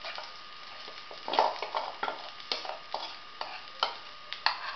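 Semolina handvo batter sizzling as it hits hot oil in an iron kadai, with irregular sharp crackles from mustard seeds and curry leaves spluttering in the oil.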